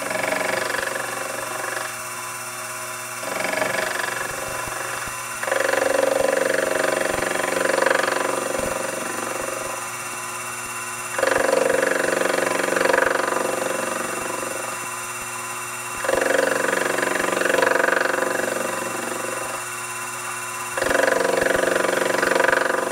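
Sherline vertical mill spindle running with a radius-corner square end mill taking light finishing passes along the metal edge of a vise slot. The cutting grows louder for stretches of a few seconds, four times, as the cutter bites in, and eases off between them.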